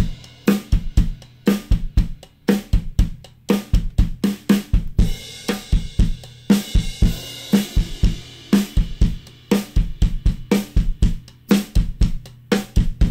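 Recorded drum kit groove of kick, snare, hi-hat and cymbals playing back through a drum subgroup, driven into the MIA Laboratories 413 Tape Saturator plugin. The saturator starts out bypassed and is switched in partway through, adding tape saturation to the drums.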